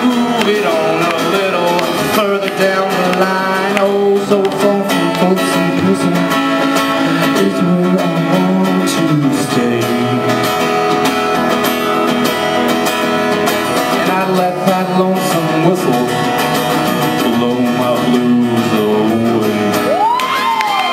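A man singing into a microphone while strumming an acoustic-electric guitar, played live through a PA. Audience whoops break in near the end.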